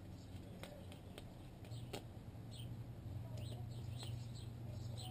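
A small bird chirping, short falling chirps repeated several times a second from about halfway through, over a low steady hum, with a few faint clicks early on.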